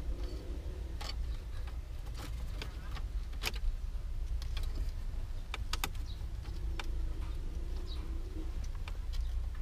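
Plastic clicks and knocks from hands pulling and working at the center-console trim of a Toyota Corolla EE90's dashboard, several sharp clicks scattered through, over a low steady rumble.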